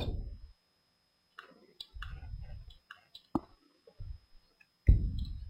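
Scattered computer mouse clicks, a dozen or so sharp short clicks at uneven intervals, among low muffled bumps, with a louder low thud near the end.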